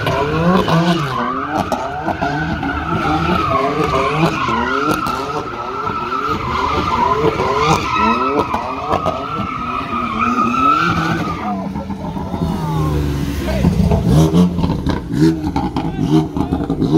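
A car doing donuts: a steady tyre squeal, with the engine revving up and down rapidly, stops abruptly about eleven seconds in. A lower engine rumble follows, with a few sharp cracks.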